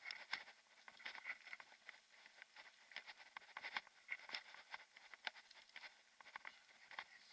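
Faint, irregular clicking and rattling from a mountain bike riding over a rough gravel forest track, with many small ticks in quick succession and no steady tone.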